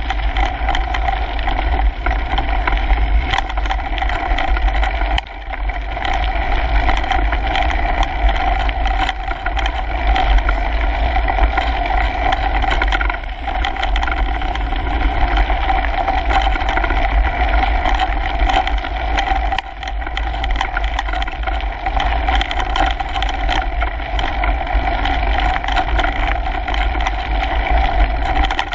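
Mountain bike riding fast down a dirt singletrack, heard from a camera mounted on its handlebar: steady tyre noise and drivetrain hum over a low rumble, with the bike rattling and knocking over bumps. The noise briefly eases three times.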